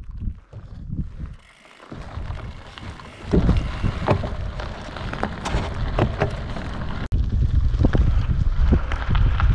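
Wind buffeting the microphone of a camera on a bicycle riding a gravel road, with the tyres crunching and sharp rattles as the bike rolls over loose stones. It gets louder about seven seconds in.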